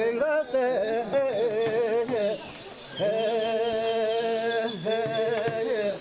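A group of voices singing a chant in unison, in long held notes with a wavering pitch, phrase after phrase with short breaths between.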